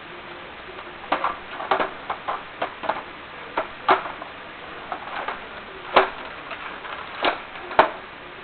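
Irregular plastic clicks and clacks of a Nerf Longshot blaster being handled, with sharper snaps about six seconds in and near the end.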